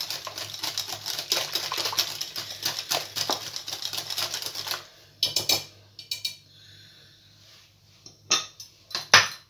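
Wire whisk beating a runny egg, sugar, oil and orange juice batter in a glass bowl: rapid clattering of the wires against the glass, which stops about five seconds in. A few separate clinks and knocks follow, the loudest near the end.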